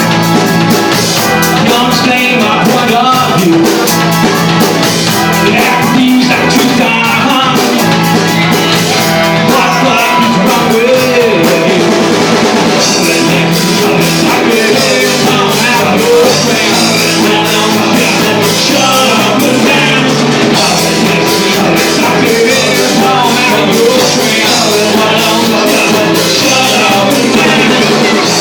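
A rock band playing live with electric guitars and a drum kit, with singing.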